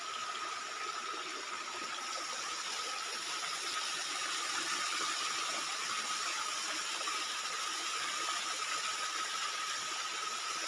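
Water pouring steadily from a gomukh spout into a spring-fed tank, an even, continuous rush with a thin steady tone running under it.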